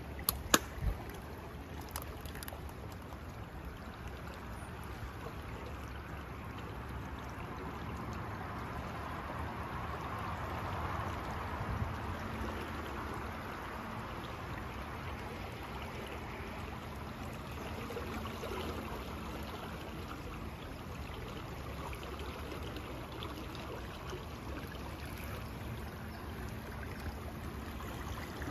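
Steady rush of running water, with a few sharp clicks in the first two seconds.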